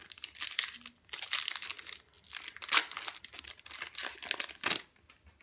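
Foil Yu-Gi-Oh! booster pack wrapper crinkling as it is opened, in a run of irregular rustling bursts that stop about five seconds in.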